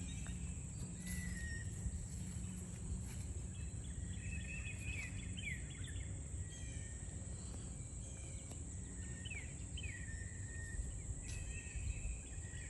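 Outdoor morning ambience: songbirds giving short chirps and quick sweeping calls on and off, over a steady high-pitched insect drone and a low rumble.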